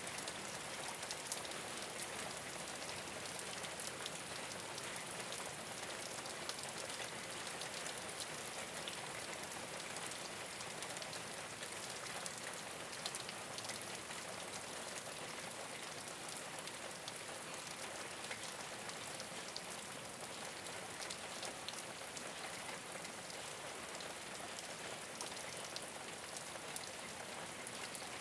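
Steady rain falling on a rooftop: an even hiss thick with many small ticks of individual drops striking.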